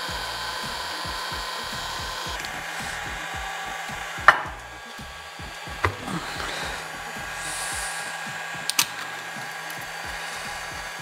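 Electric heat gun blowing steadily on a plastic radar housing; its whine drops away about two seconds in while the blowing goes on. Sharp clicks of hand tools and plastic being pried come about four seconds in (the loudest), a couple around six seconds and a quick pair near nine seconds.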